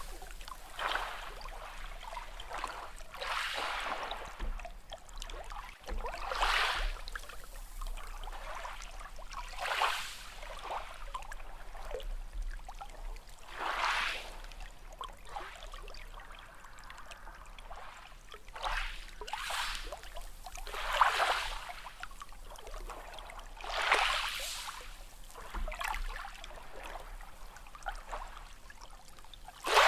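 Small sea waves washing in, each wave a short swell of splashing and fizzing water every few seconds, with lower trickling between them.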